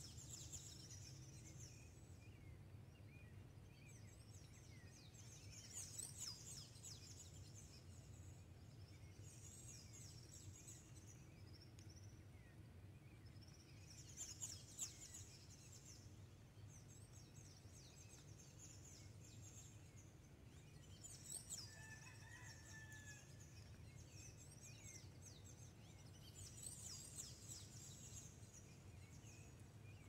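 Faint dawn bird chorus: high-pitched chirps and quick falling trills coming in short bursts every few seconds, over a low steady hum.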